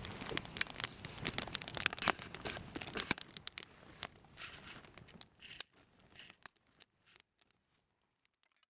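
Campfire crackling and popping, thick with sharp snaps at first, then thinning out to scattered pops and dying away near the end.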